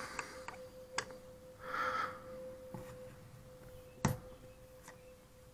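Faint, sparse metallic clicks of a screwdriver working the small flathead screw that holds the float pin on an outboard carburetor, the sharpest about four seconds in. There is a breath about two seconds in, over a faint steady hum.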